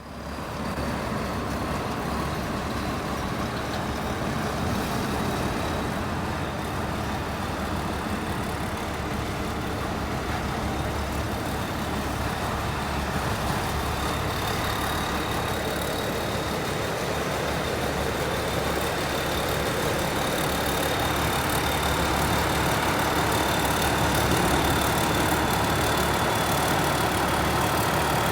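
Diesel engine of a rice combine harvester running steadily, with a thin high whine held over it.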